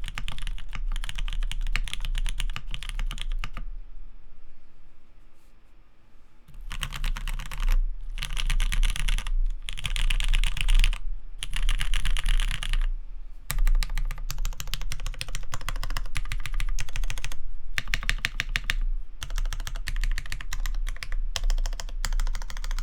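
Fast typing on a custom 60% mechanical keyboard with lubed linear Cherry MX Black switches in a sprung aluminium plate, under GMK keycaps. Dense clacking keystrokes, with a pause of a few seconds early on and short breaks later.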